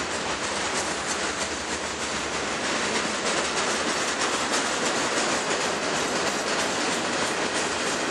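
Freight cars rolling past at speed: a steady rumble of steel wheels on the rails with a running clatter of clicks as the wheels cross the rail joints.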